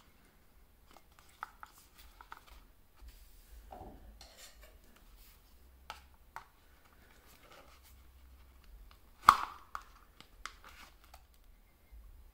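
Handling noise from a cardboard watch box and a knife blade working at the plastic cable tie that holds the watch in the box: scattered clicks, scrapes and rustles, with one sharp snap about nine seconds in.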